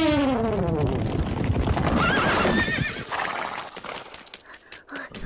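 Cartoon sound effects of a stampede of horses: rapid galloping hooves under loud falling whinnies, with a second, higher whinny about two seconds in. The hooves die away about three seconds in as the runaway horses are brought to a stop.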